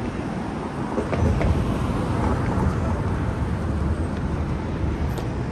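City street traffic: a steady low rumble of passing vehicles that grows louder about a second in.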